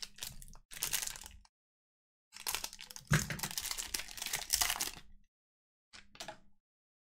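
Foil wrapper of a trading-card pack crinkling and tearing as it is opened by hand, in three bursts: a short one at the start, a longer one in the middle and a brief one near the end.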